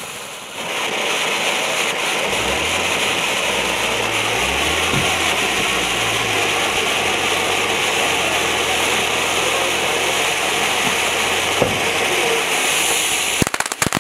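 Ground fountain firework spraying sparks with a steady hiss that dips briefly and picks up again about half a second in. About half a second before the end it breaks into rapid crackling pops.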